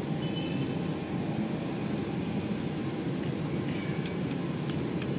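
Steady low background rumble, with a few faint clicks as plastic toy-truck parts are pressed together by hand.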